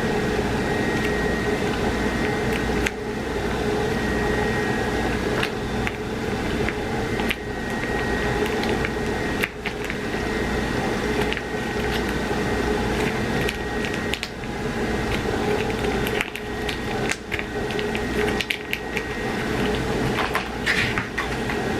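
Steady hum of a running kitchen appliance motor, with scattered light clicks and knocks of utensils or containers, more of them in the second half.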